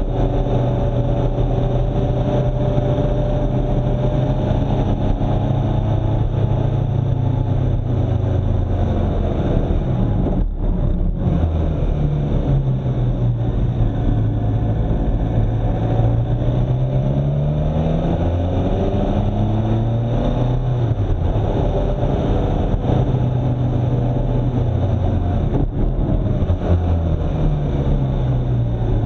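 A vehicle's engine running on the move, over a steady rush of road and wind noise. Its pitch falls and rises several times as the vehicle slows and speeds up.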